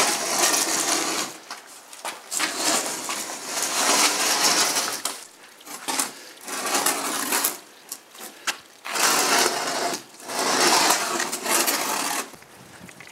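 Wood being sanded: a rasping hiss in uneven passes of a second or two each, with short breaks between them.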